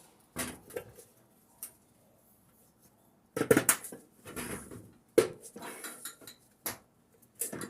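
Metal parts of a two-turbine industrial vacuum motor clinking and knocking as the end cover is fitted on by hand. The knocks are scattered, with the loudest as a cluster about three and a half seconds in and a sharp single knock a little after five seconds.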